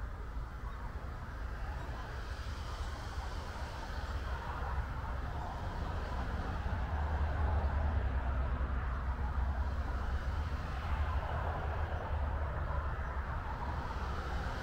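A steady low rumble with an even hiss above it, growing louder over the first half and then holding, with no distinct events.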